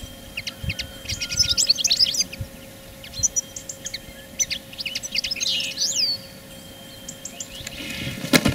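Small songbirds chirping and twittering repeatedly, then near the end a sudden sharp whoosh-snap as a pair of spring-loaded clap nets for catching birds flips over and slams shut.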